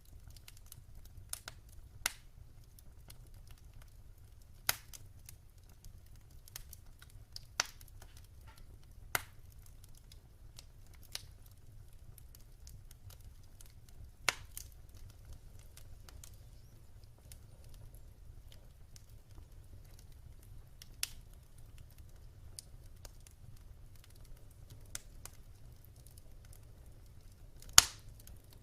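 Wood fire crackling in a fireplace: irregular sharp pops and snaps every second or two, the loudest near the end, over a faint low rumble of burning.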